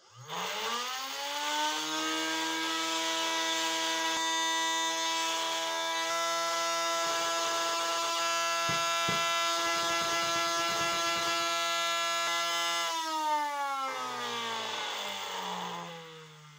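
Electric motor spinning a 3D-printed magnet rotor for a homemade magnetic induction heater, making a lot of noise. It whines up in pitch within about a second of switching on, holds a steady high whine with a lower hum for about twelve seconds, then winds down near the end, the pitch falling as it slows.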